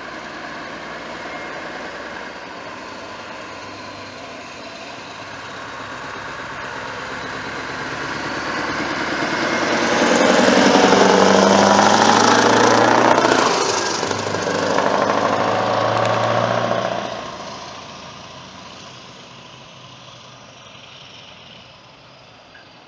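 Scania truck and trailer driving past: the engine and tyres grow louder as it approaches, are loudest about ten to thirteen seconds in, dip briefly, pull again, then fade as it drives away.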